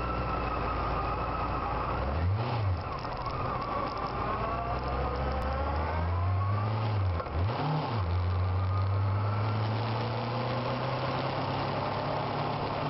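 Honda Hornet motorcycle engine heard from on board while riding, its note rising and falling with the throttle over steady wind and road noise, with two brief rev peaks, one about two seconds in and one past the middle.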